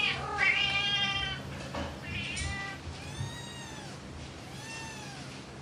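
Domestic cat meowing repeatedly: a long meow about half a second in, then several shorter calls that rise and fall in pitch.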